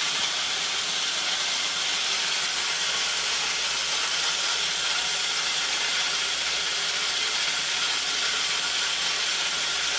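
A180 electric corn grinder cracking corn kernels between its 180 mm grinding discs, driven by a 2.2 kW motor. It makes a steady, even rush of grinding noise, mostly high-pitched, with no change in level.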